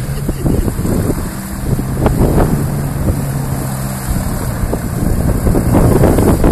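Light autogyro's engine and pusher propeller running steadily as the machine taxis toward the listener, growing louder near the end, with wind buffeting the microphone.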